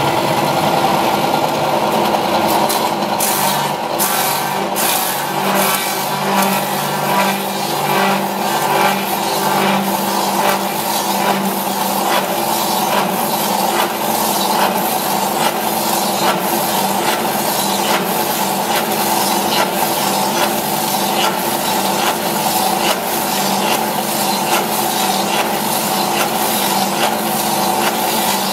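FK-2 copy-milling machine running, its cutter milling two wooden blanks: a steady motor hum under a continuous rough chatter of the cutter chipping the wood.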